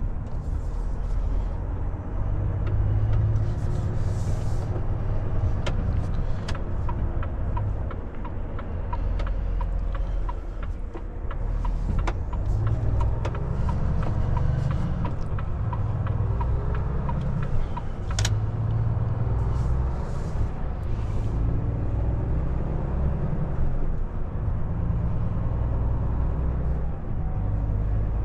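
Volvo FH460 truck's diesel engine heard from inside the cab, a steady low rumble as the truck pulls away and gathers speed. For about ten seconds in the middle, a turn indicator ticks about twice a second.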